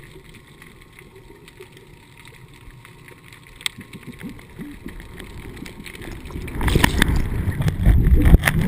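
Water noise heard through an underwater camera: a faint muffled hiss with a few scattered clicks, then from about seven seconds in a loud, low churning rush of water.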